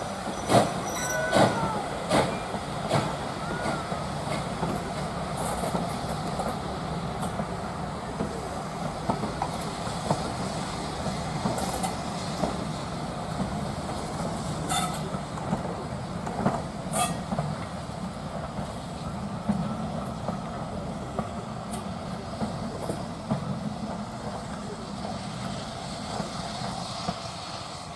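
Vintage railway carriages rolling past, their wheels clattering over the rail joints, with a few sharp clacks and brief wheel squeal in the first few seconds. The noise eases slightly near the end as the last coach passes.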